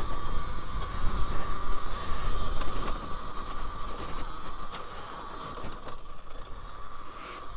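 Talaria Sting R MX4 electric dirt bike under way on a dirt trail: a steady high motor whine over a low rumble, easing off about halfway through.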